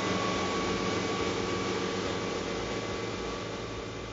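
A motor cruiser's twin Yanmar 110 hp diesel engines running under way: a steady drone with a few held tones over a steady rushing noise, slowly fading toward the end.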